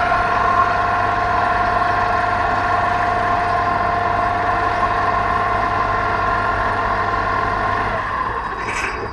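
Vibratory sheet-pile hammer and its hydraulic power pack running: a steady high whine over a low engine hum, easing off near the end, with a short hiss just before it stops.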